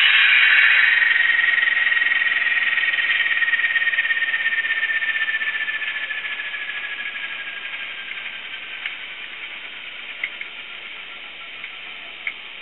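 Class 37 diesel sound from the model's LokSound V4 Micro decoder through its tiny speaker, winding down: a hiss with a high whistle that slowly falls in pitch, the whole sound fading away over about twelve seconds. A few faint clicks come near the end.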